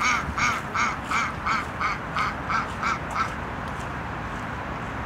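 Female mallard giving a rapid run of loud quacks, about three a second, that grow softer and stop about three seconds in.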